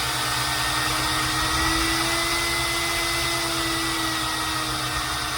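Compact Confu hair dryer running: a steady rush of blown air over a motor whine that rises slightly and settles back.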